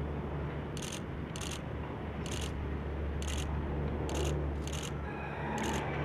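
Distant military transport plane's engines giving a steady low drone as it rolls along the runway. Faint short high-pitched pulses repeat about once a second over the top.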